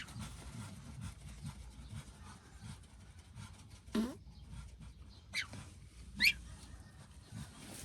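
Three short animal calls, each sliding steeply down in pitch, about four, five and a half and six seconds in, over a faint low background hum.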